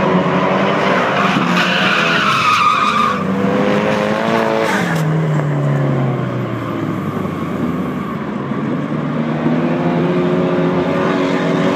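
Drift cars running at high revs while sliding sideways, engine notes rising and falling with the throttle and tyres squealing; the squeal is strongest a couple of seconds in, and around five seconds in one engine's note drops away as it comes off the throttle.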